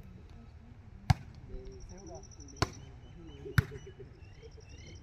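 Volleyball being struck by players' hands and forearms in a rally: three sharp hits, the first about a second in, then roughly a second to a second and a half apart.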